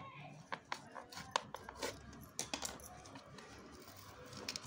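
Fingers picking at and pressing a small strip of tape on the edge of a cardboard box lid: scattered light clicks and crinkles, irregular and short.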